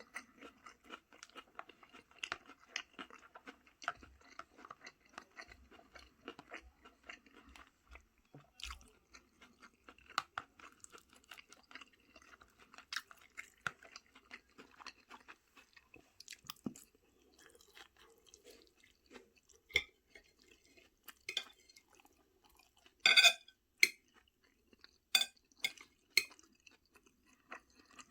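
A person chewing food close to the microphone, with many small wet clicks and crunches, and a few sharper, louder clicks in the last third.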